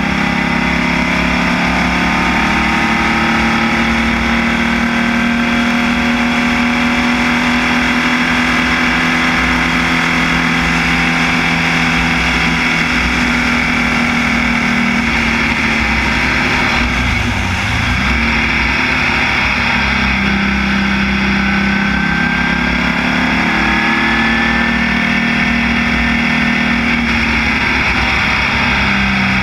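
Formula Vee's air-cooled Volkswagen flat-four engine, heard from the cockpit, running hard at high revs on a race circuit. About two-thirds of the way through, the revs drop briefly as the driver lifts and changes gear, then the engine pulls up through the revs again.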